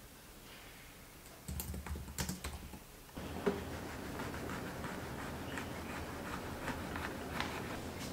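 Typing on a laptop keyboard, a quick run of keystrokes lasting about a second and a half. A little after halfway through it gives way to a steady background with small scattered taps as a knife cuts into an orange.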